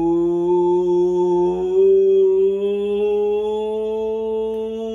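A man's voice holding one long, loud vowel with no break, its pitch stepping slightly upward about two seconds in and then staying level.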